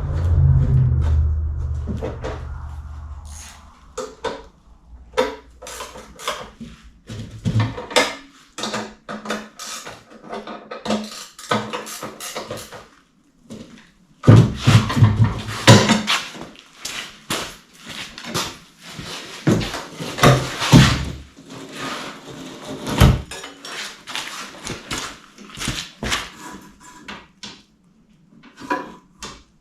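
Irregular knocks, clanks and clatter of equipment being handled, with a low rumble that fades out in the first few seconds.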